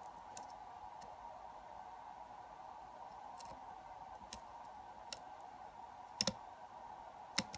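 Lock pick and tension wrench working the pins of a pin-tumbler lock: faint scattered ticks, then a sharp double click a little after six seconds and a louder single click near the end, a pin setting at the shear line.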